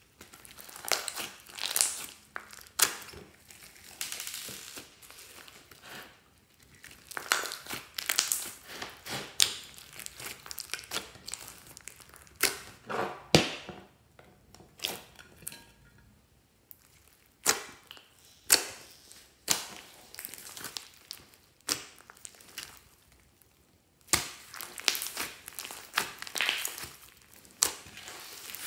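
Hands squishing and kneading a glossy slime mixed with small beads: irregular crackles, pops and sharp clicks in bursts, with a few quiet pauses.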